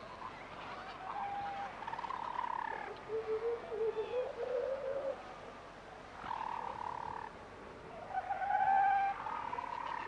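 Albatrosses calling at a nesting colony: a string of drawn-out, buzzy calls, some overlapping, with a lower pulsing call that rises in pitch around the middle.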